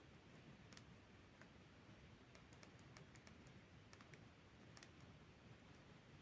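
Near silence broken by a dozen or so faint, sharp clicks at uneven spacing: the keypad buttons of a Nokia 2760 mobile phone being pressed between ringtones.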